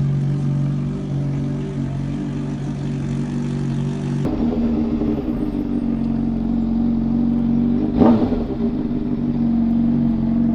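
Motorcycle engine running at steady revs, its pitch stepping higher a little over four seconds in, with a brief loud burst about eight seconds in.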